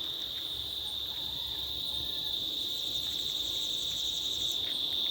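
Cicadas (locally called June bugs) droning in a continuous high-pitched chorus. A fainter, higher, rapidly pulsing insect call joins for about a second and a half past the middle.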